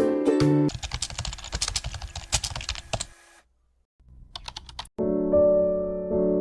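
Keyboard typing clicks, rapid and uneven for about two seconds, then a brief pause and a few more clicks. Background music cuts off as the typing begins, and a soft piano tune starts near the end.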